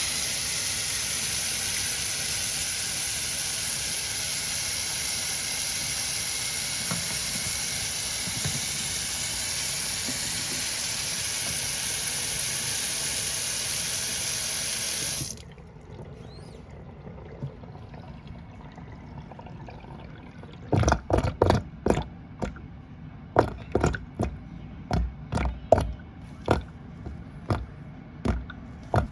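Kitchen faucet running hard into the sink, shut off about halfway through. After a short pause the sink drain starts gurgling and glugging in irregular bursts: the gurgling of a kitchen drain pipe fouled with buildup and starting to clog.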